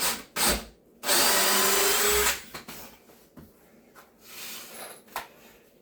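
Power drill driving a screw into a wooden cabinet base, a steady motor whine lasting just over a second, starting about a second in. Two short knocks come just before it.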